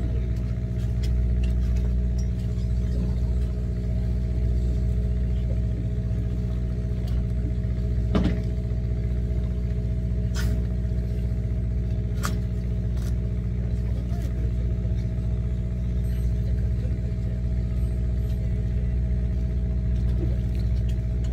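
Steady low hum of the fishing boat's engine running, with a few short, sharp clicks around the middle.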